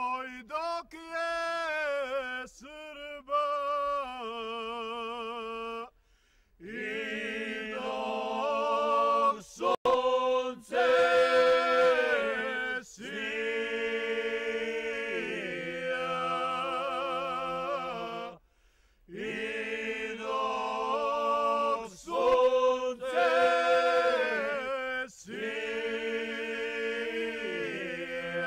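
Unaccompanied singing in a chant-like style: long held notes that waver in pitch, in phrases broken by two short silences, about six seconds in and again about eighteen seconds in.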